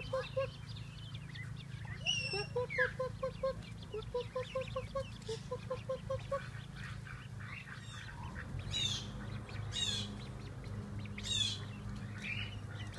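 A duck quacking in quick runs of five or six short notes, repeated several times over the first six seconds or so. After that, sharp high calls sliding downward come several times from another bird, over a steady low hum.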